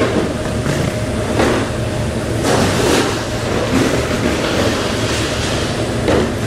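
Steady running noise of a combination weighing line's belt conveyors packing frozen hake fillets, with a faint constant hum and brief swishing noises every second or two.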